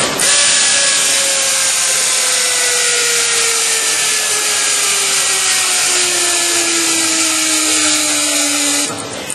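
RAD 50 pneumatic torque wrench running on a large nut: a loud air hiss with a motor tone that falls slowly in pitch, cutting off near the end.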